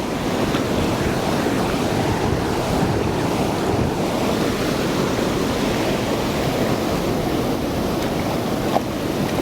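Steady rushing noise of flowing water, as of a stream or river, running without a break.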